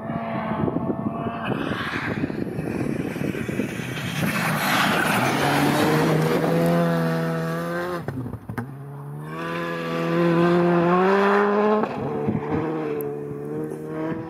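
Skoda Fabia Evo Rally2 car's 1.6-litre turbocharged four-cylinder engine at full throttle as the car passes on a snowy road. The engine note climbs and drops several times with the gear changes.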